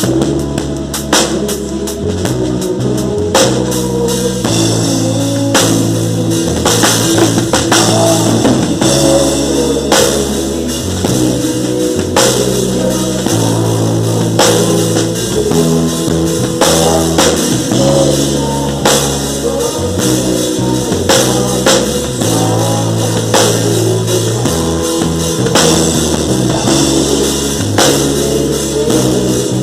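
A band playing rock-style music with no singing: a drum kit keeping a steady beat over sustained bass notes that change every second or two, with guitar.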